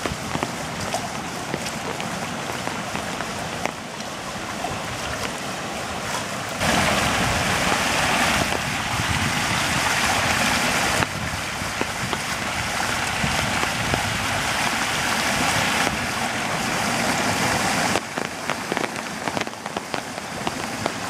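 Floodwater rushing in a steady, unpitched stream while rain falls. It is louder from about a third of the way in until near the end, where water pours through a gap between sandbags, and the level changes abruptly a few times.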